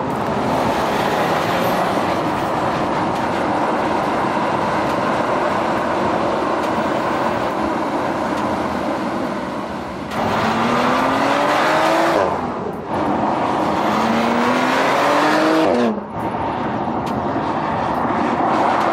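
2020 Porsche Macan Turbo's 2.9-litre twin-turbo V6 driving at speed with steady tyre and road noise. In the second half it accelerates hard twice: each time the engine note climbs steadily, then drops sharply as the dual-clutch gearbox shifts up.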